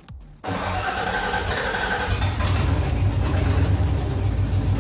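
A Ford 5.0 V8 on a Megasquirt ECU catching and running on its first fire. It starts suddenly about half a second in, and from about two seconds in settles into a steady, low, pulsing run.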